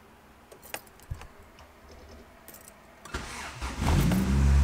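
Keys jangling in the ignition, then about three seconds in the starter cranks briefly and a straight-piped Acura Integra's Honda B20 four-cylinder catches and settles into a loud idle. No exhaust rattle against the shift linkage.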